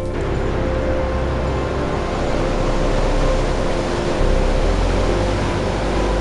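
Sea surf breaking on a rocky shore: a steady rushing wash with a deep rumble underneath, which grows louder about four seconds in.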